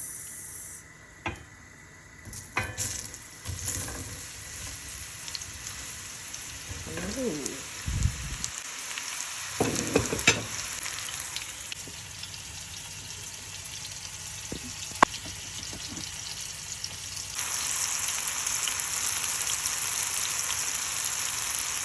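Food frying in a hot oiled pan with a steady sizzle while it is stirred, with a few sharp clinks of a utensil. The sizzle gets louder about three-quarters of the way through.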